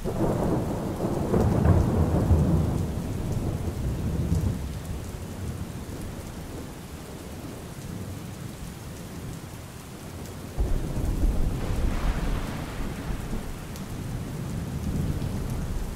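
Steady rain with two long rolls of thunder: the first rumbling at the start and fading over about four seconds, the second breaking in suddenly about two-thirds of the way through.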